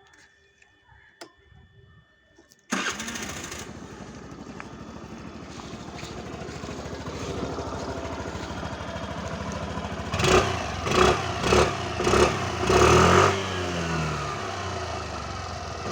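Scooter engine starting about three seconds in and idling steadily, then revved in a run of about five short blips before dropping back to idle.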